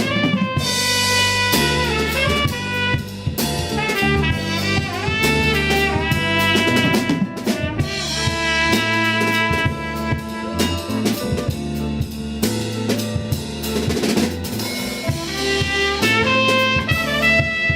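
Band music: a drum kit playing a busy beat with rimshots, under a bass line and horn melodies.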